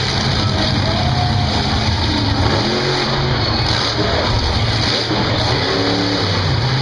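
Monster truck engine revving hard as the truck climbs onto and drives over junked cars, the pitch rising and falling in several surges over a loud, steady rush of noise.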